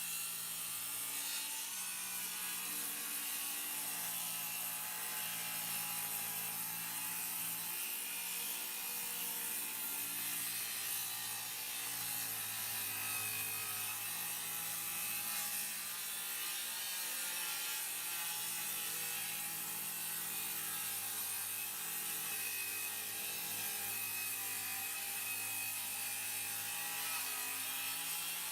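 Old Craftsman table saw running steadily, its blade cutting through wood.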